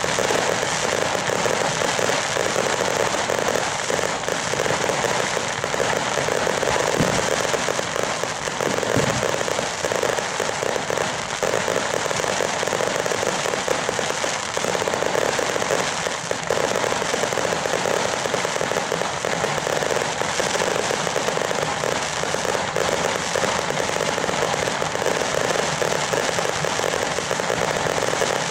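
Ground and rooftop fireworks going off in a continuous dense crackle and popping, with a couple of deeper thuds about seven and nine seconds in.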